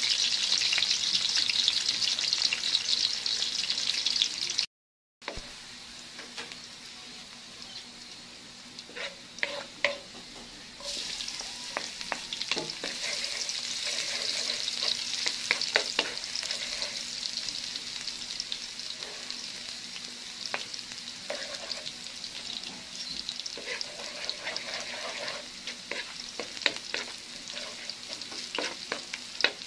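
Onion wedges, then chopped garlic and chili, sizzling in hot oil in a pot, with a wooden spoon stirring and clicking against the pan. The sizzle cuts out briefly about five seconds in, comes back quieter, and grows louder again about eleven seconds in.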